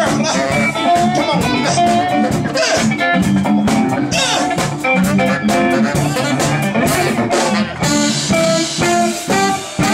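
Live band playing a funk-soul groove: electric guitar and drum kit with saxophone, dense and steady.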